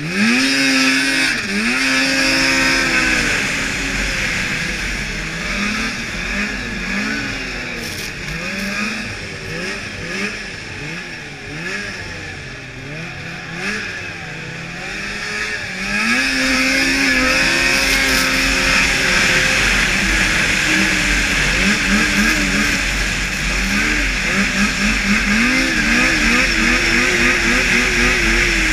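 A 2002 Blade Striker 600 race snowmobile's engine revving hard under racing throttle. Its pitch climbs sharply at the start and then rises and falls with quick on-off throttle through a stretch of turns. From about halfway it is held high again, with more rapid revving near the end, over steady wind and track hiss.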